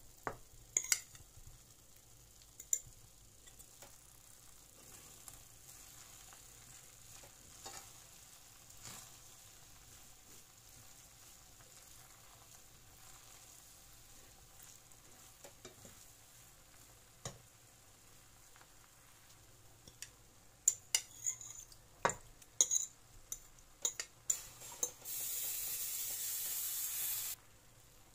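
A metal spoon stirring shrimp into cooked basmati rice in a pot, with scattered scrapes and clinks of the spoon against the pot that come thicker in the last several seconds. Near the end there is a steady sizzling hiss for about two seconds that cuts off suddenly.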